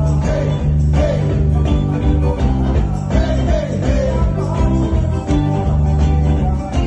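A band playing loud music with singing, guitar and a strong, steady bass line.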